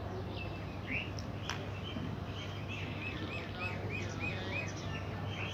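A small bird calling: scattered chirps, then a quick run of about seven repeated, evenly spaced notes, roughly four a second, over a steady low background hum.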